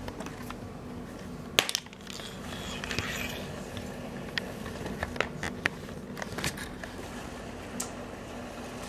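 Scattered sharp clicks, knocks and scrapes of a ferret clambering over a carpeted cat tree, its claws catching on the sisal posts and ramps, with the sharpest knock about one and a half seconds in. A steady low hum sits underneath.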